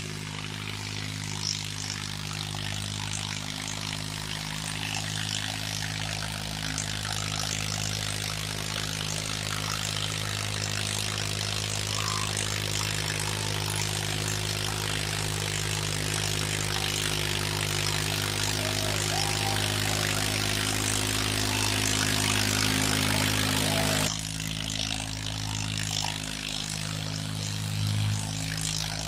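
Farmtrac 60 tractor's diesel engine working under load as it drags a harrow through loose soil, a steady drone that grows gradually louder. About 24 seconds in the louder noise drops suddenly, leaving a lower engine hum.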